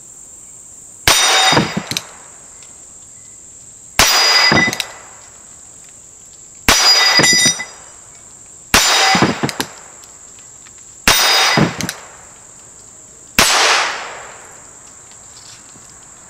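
Six gunshots from a Ruger Wrangler single-action .22 LR revolver firing Aguila Super Extra rounds, spaced about two to three seconds apart, each with a short ringing tail. Crickets keep up a steady high buzz underneath.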